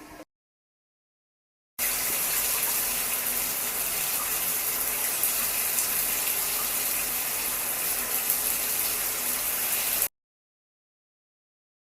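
A steady hiss of running water, strongest in the high treble, lasting about eight seconds and starting and stopping abruptly. It is a sample of the sound of a water leak.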